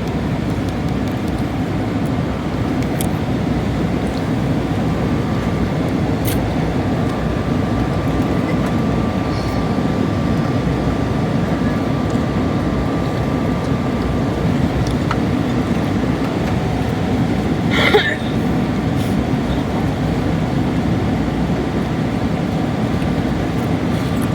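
Steady low rumble of an airliner cabin in cruise flight, with one short clatter about eighteen seconds in.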